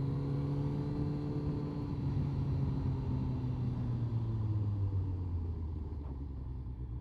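Honda CBR1100XX Blackbird's inline-four engine running as the bike slows, its note falling gradually over the first five or six seconds and then holding lower. Low wind rumble is heard through a mic inside the helmet.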